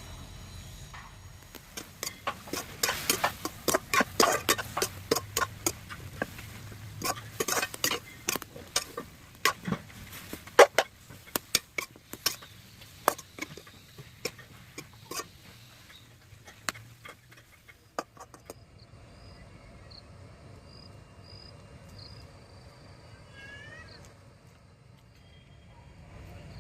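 Metal spoon or spatula knocking and scraping against a pan as pumpkin shoots are stirred while frying: many irregular clanks for about sixteen seconds, then they stop.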